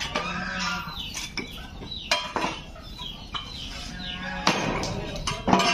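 Domestic fowl clucking and calling repeatedly, with a few sharp knocks of broken concrete slab pieces being pried up with a metal tool.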